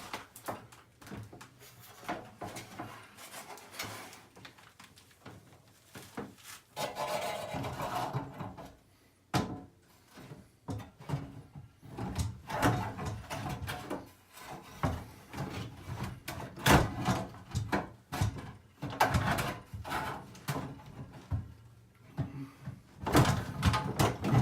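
Irregular knocks, bumps and scraping as a new air handler cabinet is shifted and pushed into position against the ceiling framing.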